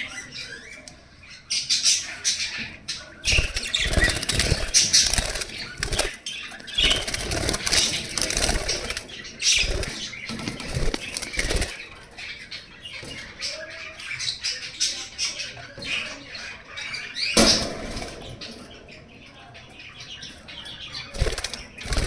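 Budgerigars fluttering and flapping their wings in repeated bursts, with light chirping in between.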